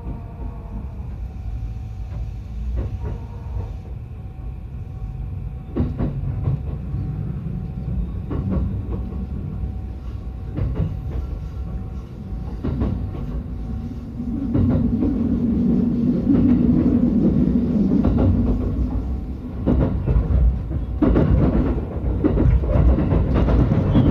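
Yokosuka Line electric commuter train running, heard from on board: a low rumble with a faint steady whine and wheels clicking over rail joints. It grows louder a little past halfway.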